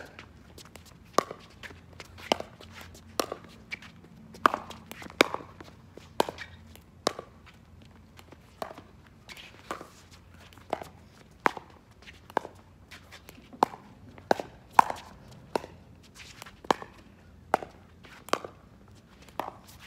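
Pickleball paddles hitting a hard plastic ball back and forth in a long rally. There is a sharp pock roughly once a second, with softer clicks between them.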